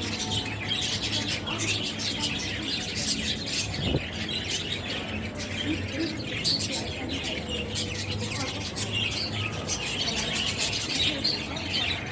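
Birds chirping, many short quick calls overlapping throughout, over a low steady hum.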